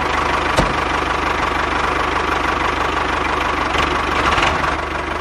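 Tractor engine running steadily with a fast, even knocking beat, going with the toy tractor as it drives off pulling its trailer.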